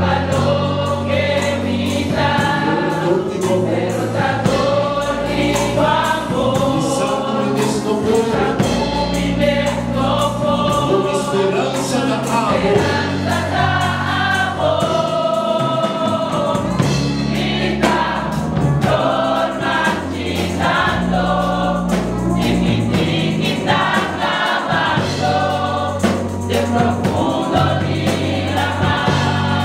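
A choir singing a gospel hymn over an instrumental accompaniment with a steady bass line.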